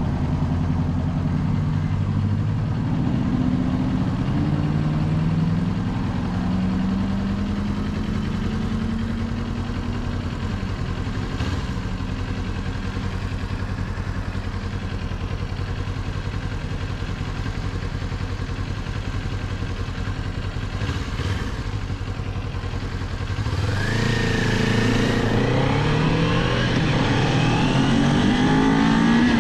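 Kawasaki 400 naked bike's parallel-twin engine accelerating. Its pitch climbs, drops at a gear change about five seconds in and climbs again, then it runs steadily at speed. It revs up hard again a few seconds before the end.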